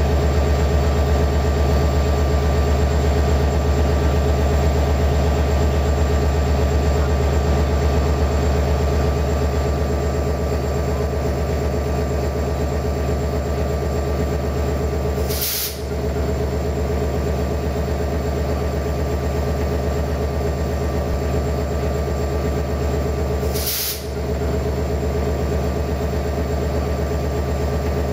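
Diesel train engine idling steadily with a low, even running note, and two brief hisses about halfway through and again some eight seconds later.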